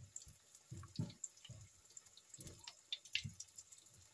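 Bananas deep-frying in a wok of hot oil: the oil sizzles and crackles with irregular small pops.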